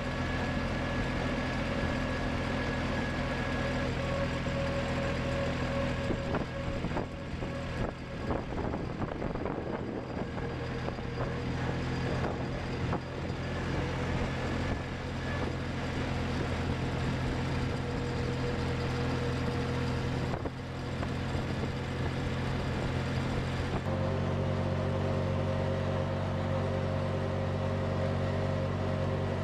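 Farm tractor engine running steadily while the tractor is driven along a road. About three-quarters of the way through, the engine note changes abruptly to a different steady pitch.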